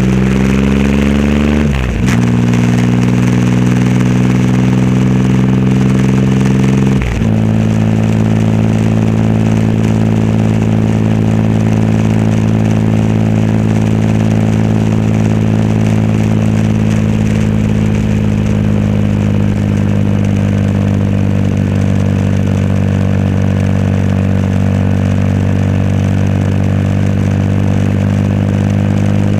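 Triumph Rocket 3 Roadster's 2.3-litre inline-three running through a custom exhaust under way. It shifts up twice, about two seconds in and again about seven seconds in, each time dropping in pitch and climbing again, then settles into a steady cruise.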